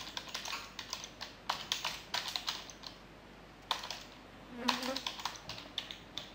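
Computer keyboard typing: several quick runs of keystrokes separated by short pauses, as a line of code is entered.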